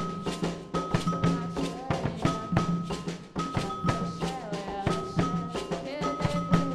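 Percussion music: drums struck in a fast, even rhythm, with a pitched melody over the beat.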